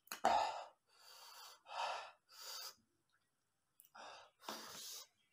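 A man breathing hard in and out through his open mouth: about six short, airy breaths with a pause near the middle, from the burn of very hot chili noodles he has just eaten.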